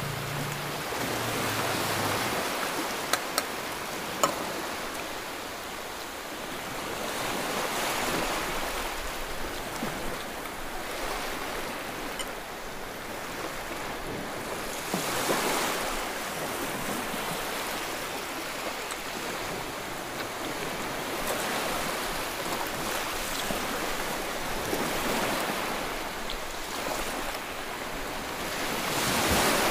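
A steady rushing noise that swells and fades every several seconds, with three short, sharp clicks about three to four seconds in.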